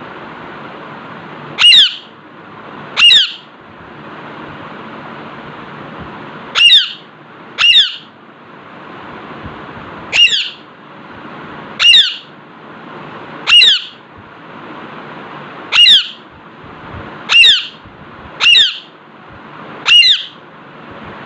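Alexandrine parakeet giving eleven loud, short squawks, one every one to two seconds, over a steady background hiss.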